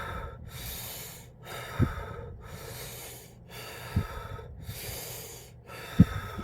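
A man breathing deeply and forcefully through an open mouth as a breathing exercise against coughing. The breaths come in a steady series of rushing in-and-out breaths, each just under a second long, with a short low puff about every two seconds.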